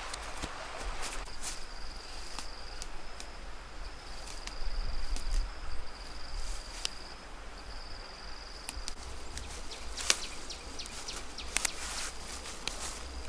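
An insect trilling steadily at one high pitch, breaking off briefly a few times, over crackling and snapping of grass and plant stems being trodden and picked by hand.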